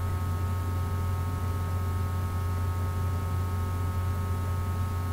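Steady low electrical hum with a faint hiss and nothing else distinct.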